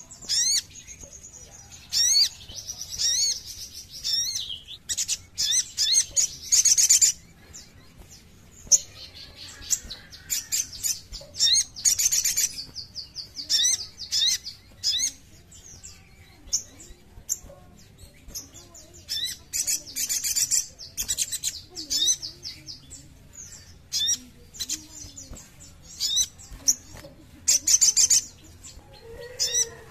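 A sogok ontong sunbird singing: rapid, high, sharp chirps and fast trills, delivered in bursts with short pauses between them.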